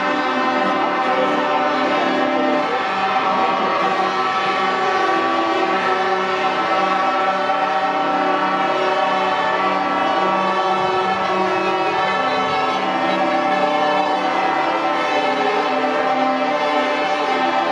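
Music with long held chords that shift every few seconds, orchestral or choral in character.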